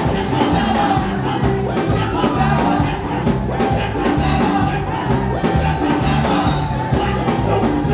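Live gospel worship music: a band playing with a steady beat, with singing voices.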